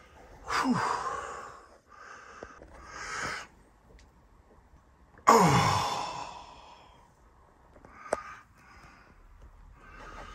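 Two human farts: one about half a second in, and a louder one about five seconds in. Each starts suddenly and falls in pitch as it trails off over a second or two.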